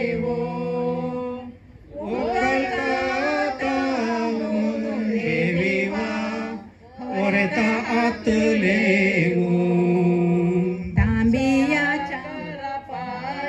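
A group of voices singing a traditional Konkani ovi, the song of the Mangalorean roce ceremony, unaccompanied, in long held phrases with short breaks between them. A brief low thump comes near the end.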